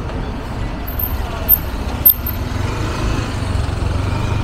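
City street traffic: the steady low rumble of passing motor vehicles, swelling a little in the second half, with two short sharp knocks about one and a half and two seconds in.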